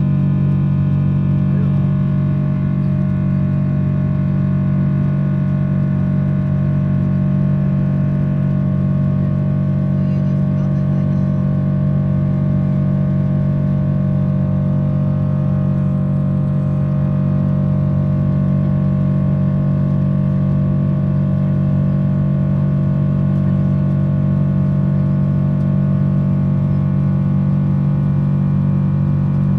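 Boeing 777-300 cabin noise: a steady low hum of engines and air flow, with a few steady tones over it, unchanging throughout.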